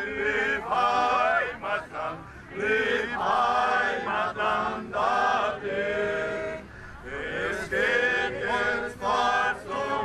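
A group singing a German folk song together, line by line with short breaks between the phrases. It is a song their emigrant ancestors sang on the voyage to Brazil.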